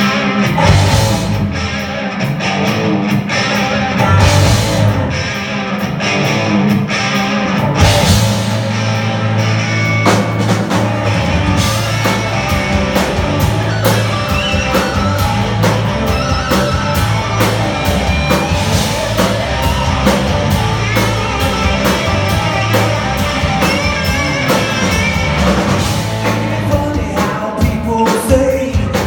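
A live rock band playing with electric guitars, bass, drums and singing. Cymbal crashes come in the first few seconds, then a steady drum beat with quick hi-hat strokes takes over from about ten seconds in.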